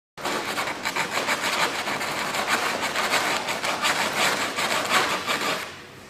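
Hand sanding on an MQ-1B Predator wing: sandpaper rasping over smoothing compound in quick repeated back-and-forth strokes to bring it to the wing's contour. The strokes stop near the end.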